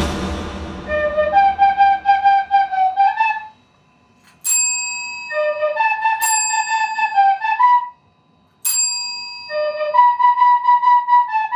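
A soprano recorder plays short, simple phrases of a few notes. A chrome desk call bell, pressed by a Shiba Inu's paw, answers three times, each ding sharp and ringing on brightly.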